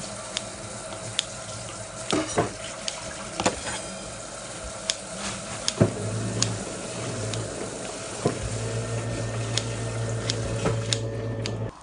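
Kitchen tap running into a sink, with dishes and utensils clinking now and then. A low hum joins about six seconds in and again from about eight seconds.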